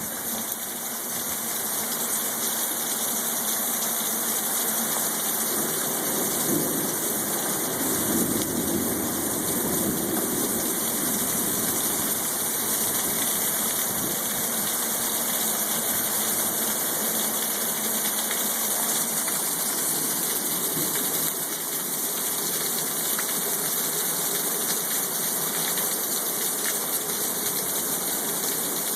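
Heavy rain from a thunderstorm, a steady downpour hissing without a break. A low rumble rises and fades between about six and eleven seconds in.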